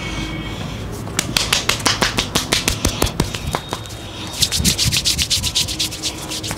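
Hands rubbing briskly back and forth over bare forearm skin in a massage, a run of quick swishing strokes, about four or five a second, that grow louder and closer together about four and a half seconds in.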